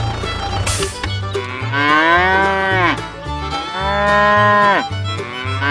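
Cow mooing: two long calls that rise and then fall in pitch, with a third starting near the end, over background music with a repeating bass line and a short cymbal-like crash about a second in.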